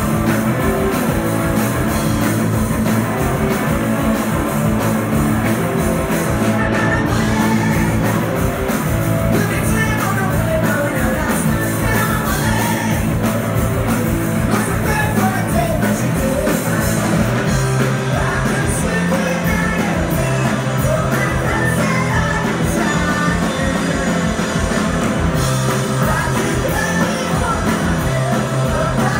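Live rock band playing, heard from among the audience: a woman singing lead over electric guitars, bass and drums, with a steady driving beat.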